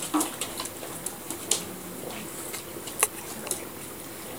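Scattered small clicks and smacks from chocolate Labrador puppies nursing and scrambling against their mother on a tile floor, with several sharp ticks, the loudest about three seconds in.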